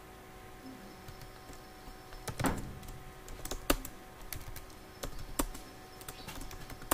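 Computer keyboard keystrokes typing a short command as irregular clicks, sparse at first and quicker near the end.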